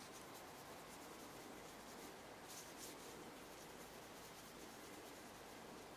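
Faint swishes of a small bristle brush stroking finish onto a wooden knife handle, with a couple of slightly louder strokes about two and a half seconds in, over a low steady hiss.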